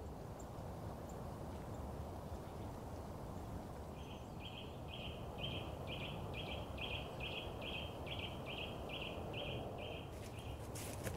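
A small songbird sings a long run of short, evenly repeated notes, a little over two a second, starting a few seconds in, over a steady outdoor rush. A few sharp crackles come near the end.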